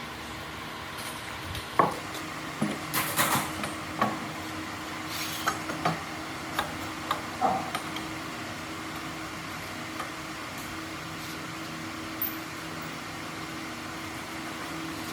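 A run of irregular knocks and clatters, about a dozen over several seconds, then a single knock later, over a steady machine hum.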